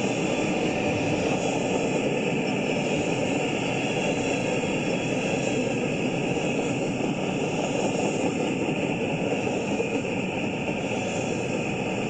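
Long freight train of intermodal well cars rolling past, steel wheels on rail making a steady rumble.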